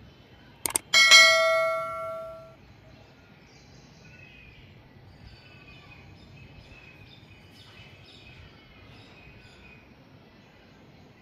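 A click, then a bell ding that rings out and fades over about a second and a half: the sound effect of an on-screen subscribe-button and notification-bell animation. After it, only faint high chirps in the background.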